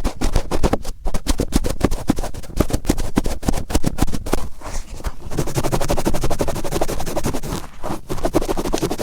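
Cotton swab rubbed hard around the inside of the right ear, a fast, close scratching rustle made of many quick strokes, with brief pauses about halfway and near the end.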